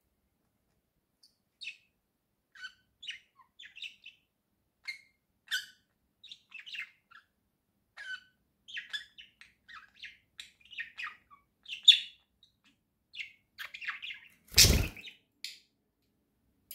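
Pet budgerigars chirping and warbling in short scattered calls, starting about a second and a half in. Near the end there is one brief loud noise, the loudest sound here.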